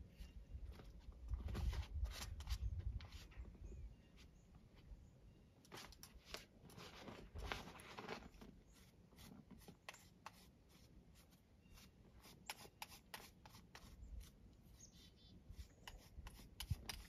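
A curry comb raking through a dog's thick shedding coat in short scratchy strokes at an uneven pace, sounding like fur being ripped out. A low rumble sits under the first few seconds.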